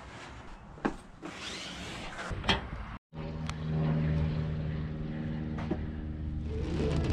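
A couple of knocks as a surfboard is handled in a pickup bed. Then a 2000 Ford Ranger's engine idles steadily, with music coming in near the end.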